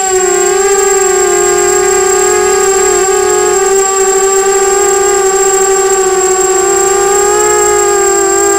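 Brushless motors and propellers of a 250-size FPV racing quadcopter whining steadily in flight, heard close from the drone itself. The pitch wavers slightly with throttle, dipping briefly about three seconds in and again near the end, over a thin steady high whistle.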